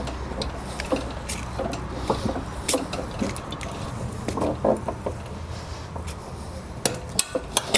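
A two-jaw gear puller is tightened with wrenches on a seized lawnmower blade adapter, making scattered metallic clicks and clinks. A quick run of clicks comes near the end.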